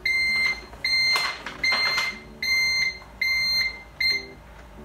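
Hospital pager (bleep) going off: six evenly spaced high electronic beeps, a little under a second apart, stopping about four seconds in. The bleep calls the doctor to phone the ward back. A couple of brief paper rustles are heard between the beeps.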